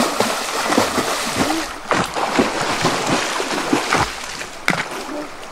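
Water splashing and sloshing as a swimmer dives and moves in a river, over the steady rush of the flowing water. A few sharper splashes stand out, about two seconds in and again near four and five seconds.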